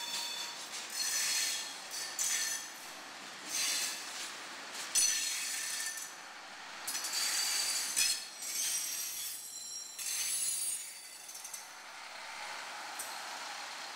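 A railcar rolling slowly over yard track. Its wheels give irregular high metallic squeals and clinks, about one every second or so, over a light running rumble.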